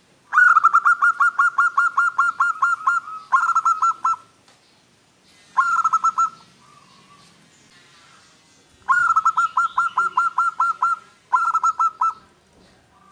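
Zebra dove (perkutut) singing: five phrases of rapid staccato coos, about six notes a second, the first the longest at about two and a half seconds.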